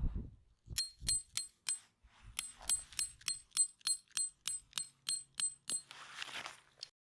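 A small mechanism clicking repeatedly with a high metallic ring, about three clicks a second, with a short pause after the first few clicks; a soft rustle follows near the end.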